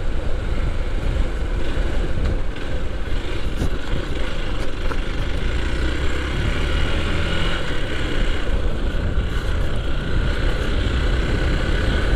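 Motorcycle engine running steadily under way, with wind rushing over the microphone and a heavy low rumble.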